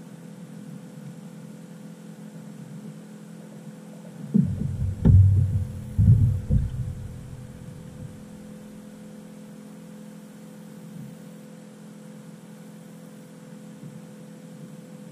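Steady low electric hum from a small battery-powered aquarium aerator pump. A few loud, low thumps break in about four to seven seconds in.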